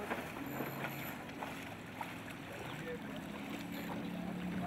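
Water rushing and wind around J24 sailboats under sail, with a few light clicks from aboard. A low steady hum comes in about three seconds in.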